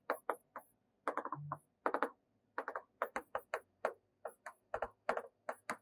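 Pen taps and clicks on a writing surface while a structure is drawn: a string of short, sharp, irregular taps, about four a second.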